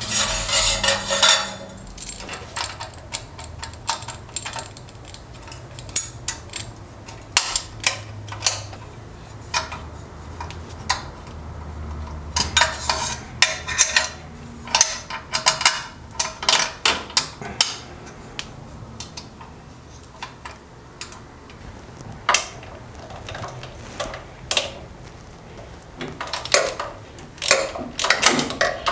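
Irregular metallic clinks and clicks of wrenches and exhaust hardware as the nuts holding the exhaust pipes to the engine's cylinders are tightened, some strikes coming in quick clusters.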